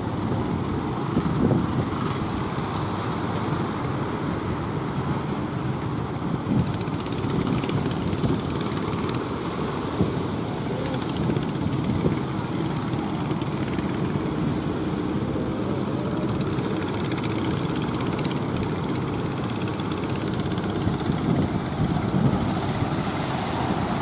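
Outrigger fishing boat's engine running steadily as the boat moves through the surf, over the wash of waves.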